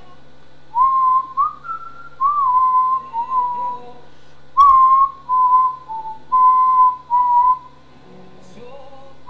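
A man whistling a melody: short phrases of clear, pure notes around one pitch range, gliding between notes, with brief pauses between phrases.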